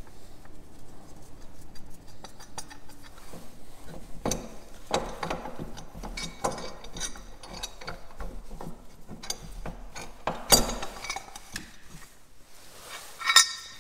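Metal tools and parts clinking and knocking as the last engine mount bolts are undone and the mount is lifted off: a run of irregular sharp clinks, with the loudest knocks about ten and a half seconds in and near the end.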